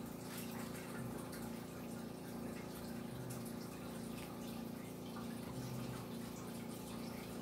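A steady low hum with a slight pulse under an even hiss, with no distinct event standing out.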